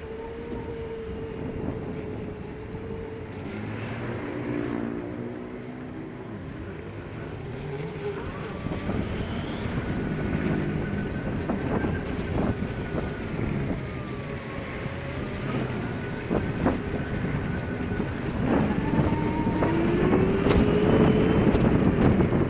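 A motor vehicle's engine running on the move, its pitch rising and falling with speed and climbing near the end. Under it runs a steady hiss of wind and tyres on a rain-soaked road.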